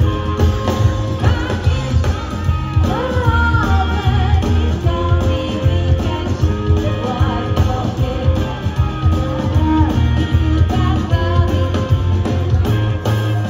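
Rockabilly band playing live: a woman singing lead over a driving upright bass line and electric guitar.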